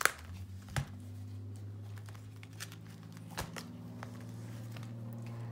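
Clear vinyl zipper cash envelopes in a ring binder being flipped and handled, crinkling, with a few sharp clicks, the loudest right at the start. A steady low hum runs underneath from just after the start.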